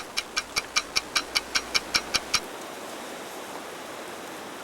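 Rapid, even clock-like ticking, about five ticks a second, that stops about two and a half seconds in, over a steady hiss of wind and water.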